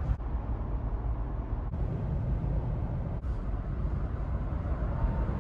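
Jeep Wrangler Rubicon JL driving at highway speed: a steady low rumble of engine and tyre road noise, broken by two brief dropouts where the recording cuts between clips.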